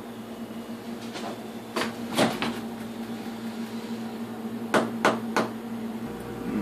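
A handful of sharp clicks and knocks from a refrigerator door being opened and handled: one group about two seconds in and another about five seconds in, over a steady hum.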